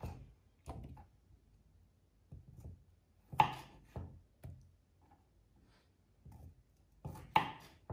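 Kitchen knife slicing cherry tomatoes on a wooden chopping board: a string of short knocks as the blade cuts through and taps the board, unevenly spaced with short pauses, the loudest about three and a half seconds in.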